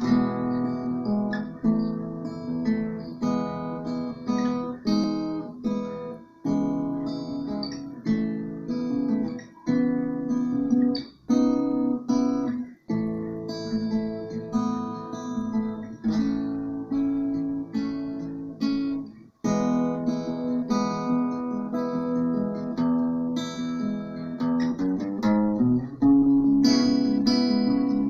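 Acoustic guitar played solo, chords plucked and strummed in a steady run of attacks, breaking off briefly twice between phrases.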